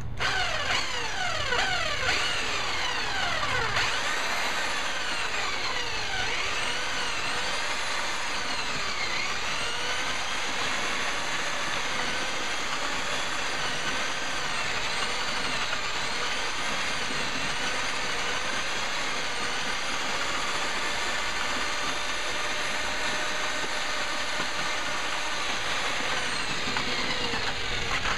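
Northern Tool double-auger electric mortar mixer running with its paddles in a bucket of mortar, the motor's whine rising and falling in pitch over and over as its speed changes.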